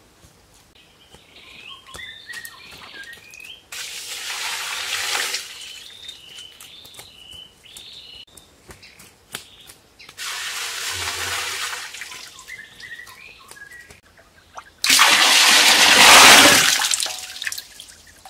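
Water poured from a bamboo tube into a bamboo-walled tank, splashing in three pours of a second or two each, the last the loudest. Birds chirp between the pours.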